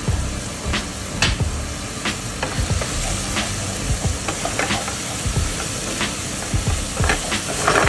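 Minced pork, garlic and chili sizzling in hot oil in a wok, stirred with a wooden spatula. The spatula scrapes and knocks against the pan many times, in short, irregular strokes over a steady sizzle.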